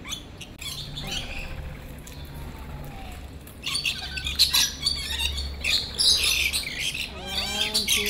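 A flock of lorikeets calling with high-pitched chirps while they crowd onto a person's arms to feed. The calls grow louder and denser about halfway through.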